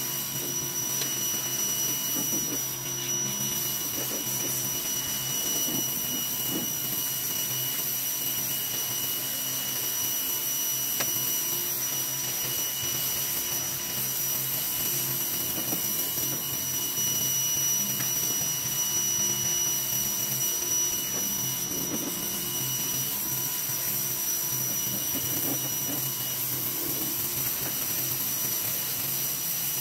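Greenworks pressure washer running steadily, its motor whining at a constant pitch under the hiss of the high-pressure water jet striking the steel bed of a pickup truck.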